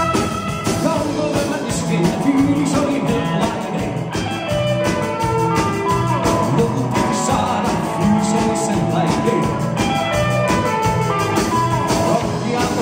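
Live rock and roll band playing: accordion, drum kit and electric guitar keep up a steady beat.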